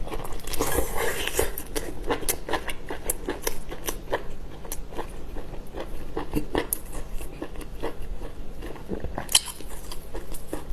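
Seafood being bitten and chewed close to the microphone: a stream of irregular, sharp, crunchy clicks, with one louder snap about nine seconds in.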